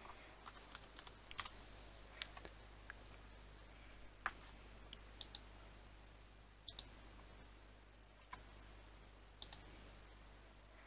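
Faint, scattered typing clicks, single or two or three close together, as a four-digit code and a quiz answer are keyed in. Between them it is near silence.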